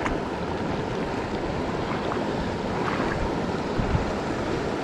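Steady rush of flowing creek water, with a few faint ticks over it.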